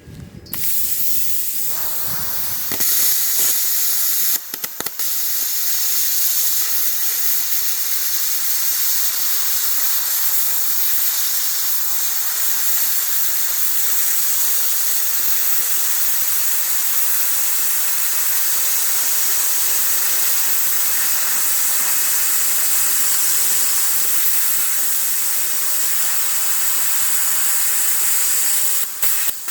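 Plasma cutter cutting a car's steel frame: a loud, steady hiss of the arc and air. It grows louder about three seconds in and breaks off briefly a couple of times near five seconds and once near the end.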